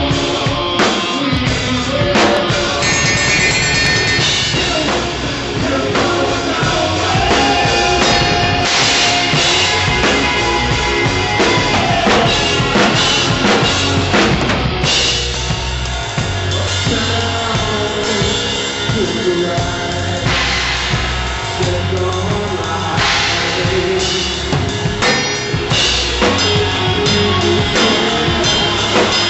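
Rock band playing live with a Tama drum kit loud in the mix: kick drum and snare driving the beat, with repeated cymbal crashes.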